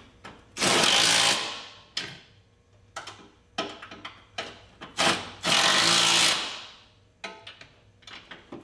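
Cordless drill spinning a socket on the strut tower brace nuts of a Mazda Miata, tightening them as the brace goes back on. There are two runs of about a second each, roughly a second and five seconds in, with a few sharp clicks of socket and metal between them, and another run starting at the very end.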